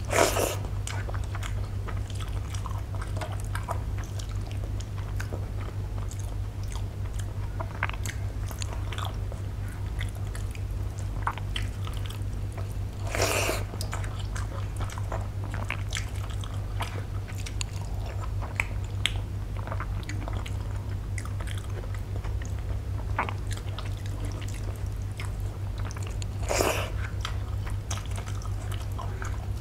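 Close-miked eating sounds of rice mixed with milk eaten by hand: wet chewing and biting with many small clicks, and fingers working the soft rice on a steel plate. Three louder mouth sounds come about a second in, near the middle and near the end, over a steady low hum.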